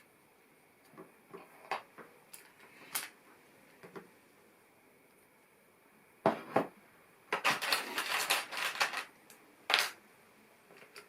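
Plastic LEGO pieces clicking and rattling as they are handled and snapped together: scattered light clicks at first, then a dense clatter of pieces for about two seconds past the middle, and a last sharp click.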